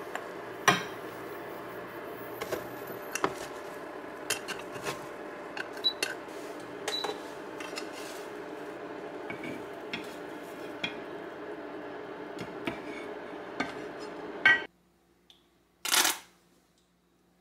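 Chopsticks clicking and scraping against a small frying pan over a steady hum, as egg and steamed cabbage are cooked and tipped onto a plate. After the sound cuts off, a short sputtering squirt from a squeezed plastic ketchup bottle about 16 seconds in.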